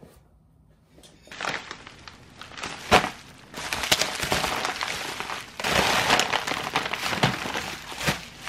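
Bubble wrap and plastic snack packets crinkling and crackling as a parcel is unwrapped by hand. It starts about a second in, with a loud crack about three seconds in.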